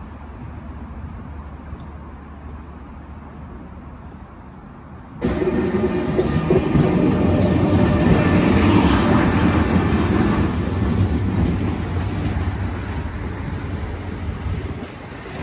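A steady low background hum, then about five seconds in the sound switches abruptly to a Renfe high-speed train passing close by, its wheels rumbling and clattering over the track. It is loudest a few seconds after it starts and fades near the end.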